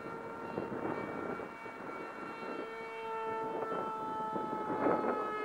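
Electric motor and propeller of a small RC flying wing humming overhead, a steady whine with a couple of slight shifts in pitch. It is flying home on return-to-launch at a throttle setting the pilot finds too high.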